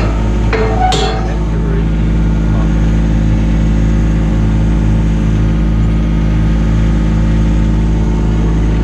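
Mini excavator's engine idling steadily, with a couple of short clanks about a second in.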